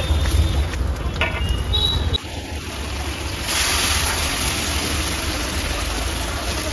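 Tomato sauce with vegetables simmering and sizzling in a large iron kadai over a burner, as boiled pasta is tipped in. It is a steady hiss from about halfway through, over a low street rumble that breaks off sharply about two seconds in.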